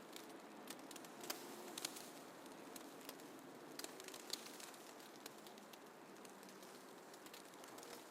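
Faint snowfall ambience: a soft steady hiss with scattered light ticks and crackles at irregular intervals.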